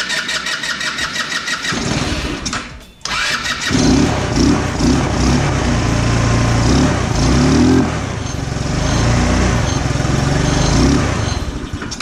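A 150cc GY6 scooter's single-cylinder four-stroke engine being cranked by its electric starter, pausing briefly, then catching about three seconds in and running, its revs rising and falling. This is the engine that starts but will not idle.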